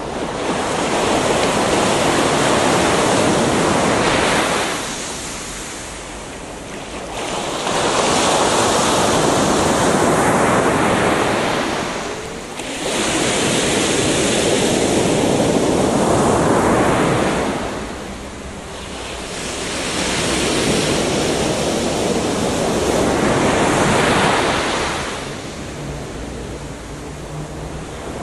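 Gentle waves washing onto a beach: four swells of surf, each rising and falling away over several seconds, about every five to six seconds.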